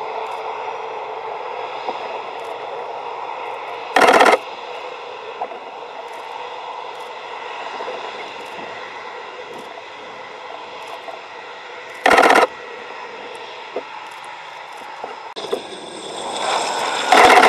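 Aircraft engines running with a steady whine. Two brief loud bursts of noise cut in about 4 and 12 seconds in, and the sound swells louder near the end.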